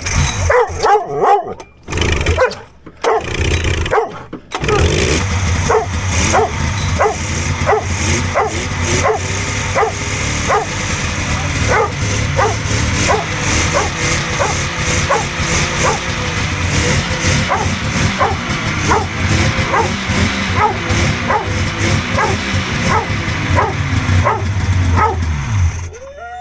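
Polaris XLT 600 three-cylinder two-stroke snowmobile engine firing in a few short bursts on its first start, then catching about four seconds in and running until it shuts off just before the end. A dog barks repeatedly over the engine, about twice a second.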